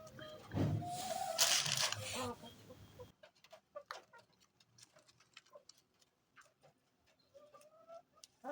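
Domestic chickens calling: a loud, harsh call in the first two seconds, then scattered soft clicks and a shorter hen call near the end.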